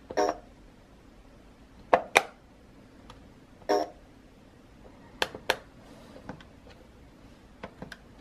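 Plastic keys of a Discovery Kids Teach & Talk Exploration Laptop toy being pressed, giving sharp clicks, the loudest two close together about two seconds in. The laptop gives short electronic beeps in answer, once at the start and once about halfway through.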